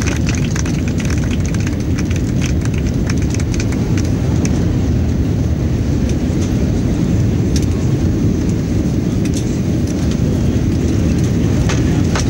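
Jet airliner cabin noise: a loud, steady low rumble with a faint high hiss above it, and light rattling clicks in the first few seconds.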